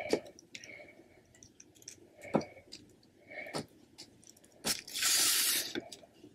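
Handling sounds as a small plastic toy figure is set down on a wooden desk: a few faint taps spread over several seconds, and a short rustle lasting about a second near the end.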